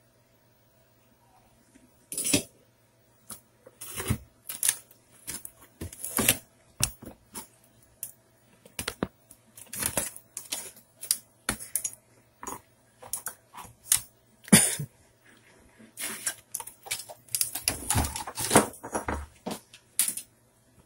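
Irregular clicks, knocks and light rattles of a TV's circuit board and tools being handled, moved and set down, sparse at first and coming thick and fast in the last few seconds.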